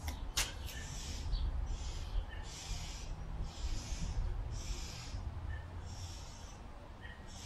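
A man breathing hard from the exertion of burpees and squats: short, hissing puffs of breath in a steady rhythm, one about every half second to second. There is a sharp click about half a second in, and a steady low rumble underneath.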